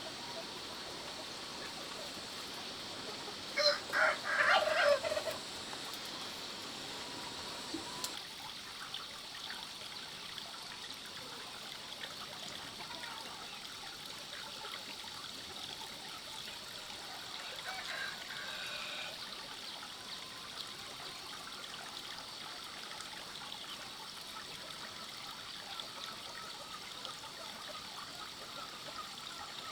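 Rural outdoor ambience: a steady background hiss, broken about four seconds in by a short burst of several loud calls from a chicken. A fainter call follows near the middle.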